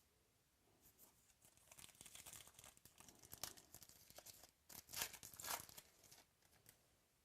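A trading-card pack wrapper being torn open and crinkled, in a run of crackling bursts that is loudest about three and a half and five seconds in.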